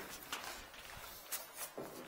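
Footsteps and scuffs on a concrete floor, with a few light knocks, as someone moves about and handles gear.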